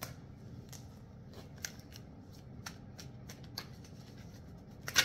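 Deck of tarot cards being shuffled by hand: scattered soft card clicks and riffles, with a sharper flurry of card snaps near the end.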